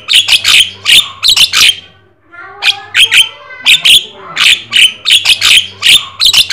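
Javan myna (jalak kebo) singing loudly: quick runs of sharp, repeated notes, with a short break about two seconds in before a second run.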